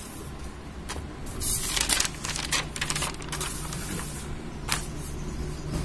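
Paper notebook pages rustling as they are flipped through by hand, in several short bursts over a steady low hum.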